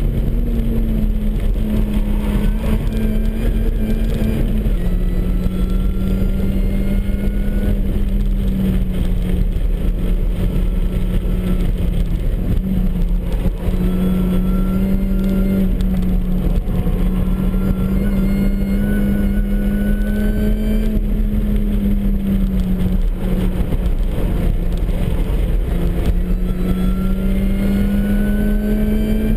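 Supercharged MINI Cooper S engine running hard on track, its note stepping up and down with throttle and gear changes, while a higher whine rises several times as it pulls through the revs.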